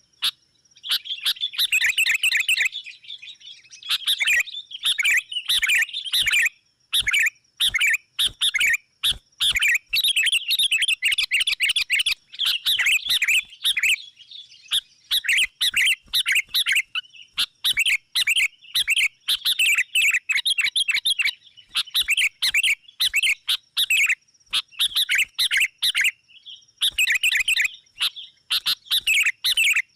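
Sooty-headed bulbuls giving excited, quarrelling chatter calls in rapid bursts, one after another with short gaps: a lure call used to draw wild bulbuls in. A thin steady high tone runs underneath.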